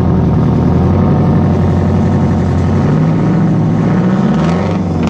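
A large engine running loudly and steadily, revving up briefly near the end.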